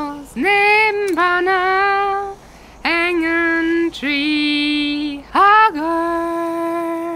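A woman singing, one voice in long held notes with short breaks between phrases; the last note, near the end, is held for nearly two seconds.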